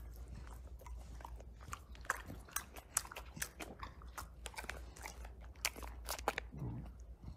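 English bulldog chewing a treat: irregular soft clicks and smacks of its mouth, over a faint low hum.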